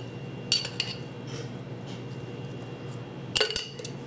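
Glass jar clinking as pepperoncini rings are tipped out of it into a slow cooker, a slotted utensil held at its mouth: a couple of light clinks about half a second in and again near the end, over a steady low hum.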